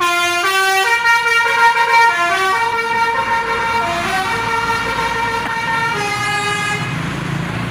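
Bus Basuri telolet horn playing a melody of stepped notes that rise and fall, stopping about seven seconds in. A low engine hum is left near the end.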